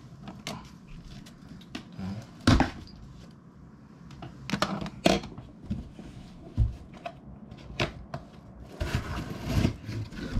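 Cardboard shipping box being handled on a desk: knocks, scrapes and rustling as it is lifted, turned and set down, with the loudest knock about two and a half seconds in and a longer scraping rustle near the end.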